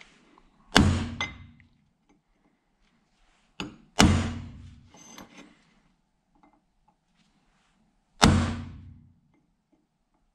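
Hammer striking a center punch on a steel angle-iron bracket, marking the centres of holes to be drilled: three sharp blows a few seconds apart, each ringing out briefly, with a light tap just before the second.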